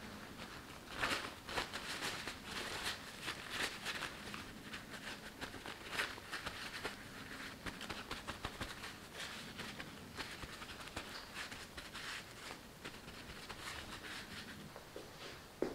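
Paper towel rubbing and rustling against the skin of a raw sweet potato as it is wiped, a steady run of soft scuffs. A sharp tap comes near the end.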